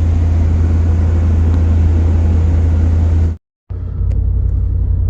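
Steady, loud low rumble of a vehicle on the move. It cuts out abruptly for a moment a little past three seconds in, then resumes.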